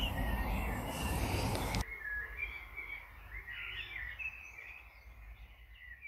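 Garden birds singing and chirping, with a low rumble on the microphone for the first couple of seconds. After an abrupt cut about two seconds in, the birdsong goes on more faintly.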